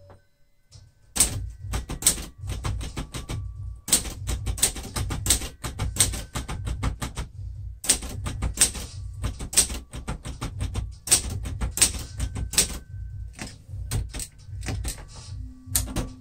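Adler J5 typewriter being typed on: quick runs of keystrokes and typebar strikes starting about a second in, broken by a few short pauses.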